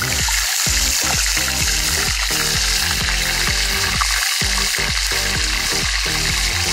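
Eel-tail catfish fillets sizzling steadily as they shallow-fry in hot oil in a pan, with background music.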